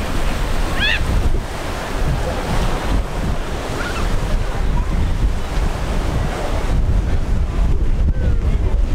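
Wind buffeting the microphone over the steady wash of Gulf surf.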